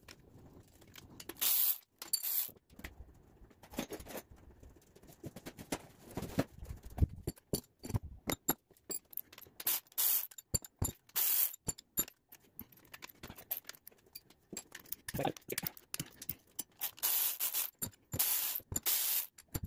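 Cordless electric ratchet whirring in repeated short bursts as it backs out the rocker-arm bolts on an engine's cylinder head, between clicks and clinks of the loosened metal parts.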